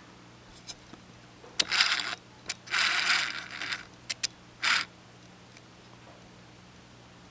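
A few short scraping, rustling handling noises with sharp clicks between them, the longest lasting about a second, all between about one and a half and five seconds in.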